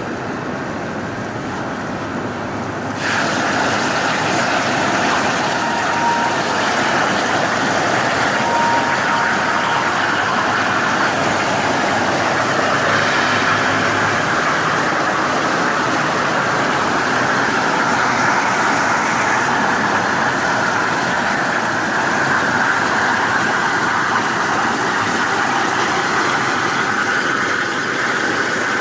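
Cutting torches on a CNC multi-torch strip-cutting machine running with a steady, loud hiss. The hiss gets louder and brighter about three seconds in, as the torch gas flow or the cut starts.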